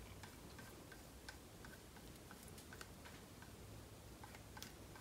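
Near silence: room tone with faint, light ticks, two or three a second.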